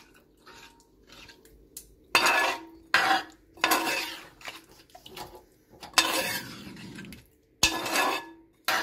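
Steel spoon stirring chicken curry in a metal pot, scraping against the pot in several separate strokes, with one sharp knock near the end.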